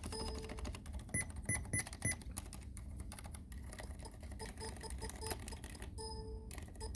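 Typing on an ABKO AR87 full-aluminium mechanical keyboard with unlubricated Cherry MX Silent Red switches: a dense run of muted key strokes. Short pitched beeping tones sound four times about a second in, then in a quick run of about seven a little past the middle.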